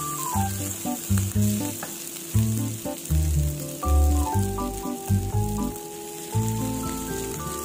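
Food frying in a pan with a steady sizzle, stirred with a spatula, under background music with a melody and a loud bass line.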